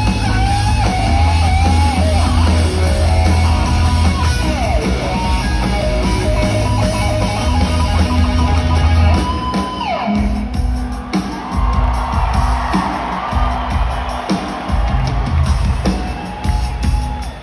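Live rock band playing amplified, with electric guitars, bass and drums, heard from the crowd in a large venue; about ten seconds in the band drops back to a quieter passage.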